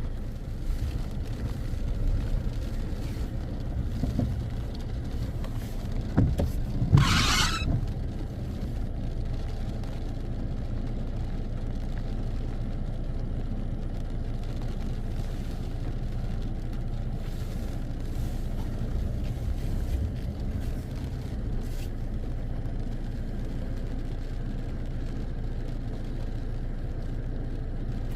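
Strong wind buffeting the microphone as a steady low rumble, swelling unevenly in the first few seconds, with a short loud rush of hiss about seven seconds in.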